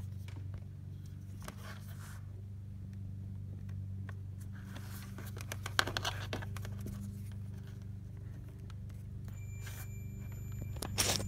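Scraping and clicking of hands and phone rubbing against corrugated plastic wire loom and wires, over a steady low hum. About nine seconds in, a multimeter on audible continuity starts a steady high beep, which shows continuity between the MIL wire from the gauge cluster and the brown-with-white-stripe wire in the swap harness.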